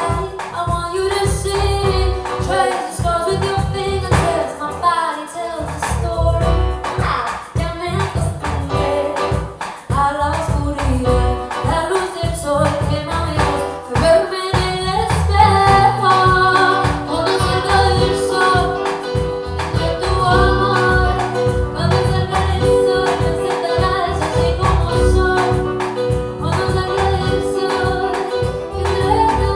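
A woman singing lead vocals with a live band behind her: drums keep a steady beat, and long held chords come in about halfway.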